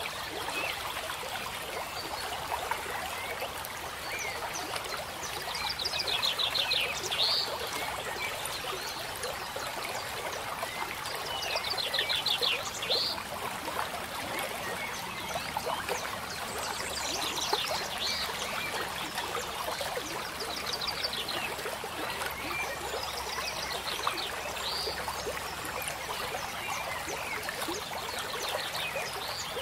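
Steady sound of running water, like a trickling stream, with a short trilled animal call repeating every four to six seconds.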